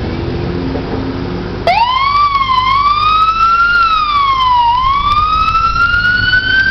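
A loud siren starts suddenly about a second and a half in, wailing slowly up and down in pitch, then climbs and holds a high note near the end, over background traffic noise.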